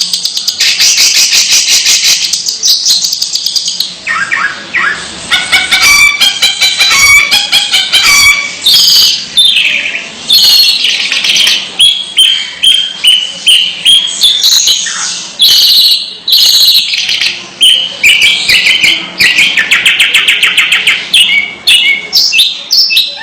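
Long-tailed shrike (cendet) singing nonstop: a fast, varied run of scratchy chattering notes mixed with short whistles and quick repeated phrases.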